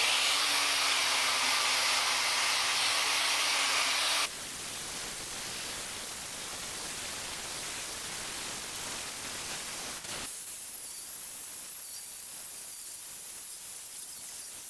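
Angle grinder with an abrasive disc grinding old paint and rust off the cast-iron casting of a mill drill: a loud, steady grinding hiss over the motor's hum for about four seconds, then a sudden change to a quieter, even grinding hiss that shifts again about ten seconds in.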